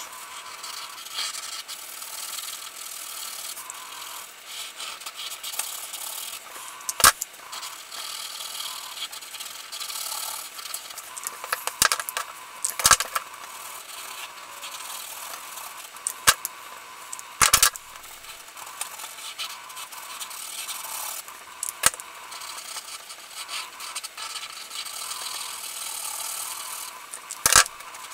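Felt-tip permanent marker nib scratching and rubbing across card stock while colouring in areas, broken by a few sharp clicks from handling the markers and their caps.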